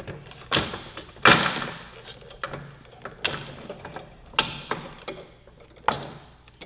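Clunks and knocks of metal parts as a motorcycle's rear wheel is supported and worked free of the swingarm, its axle just pushed through. There are about six sharp knocks, the loudest a little over a second in.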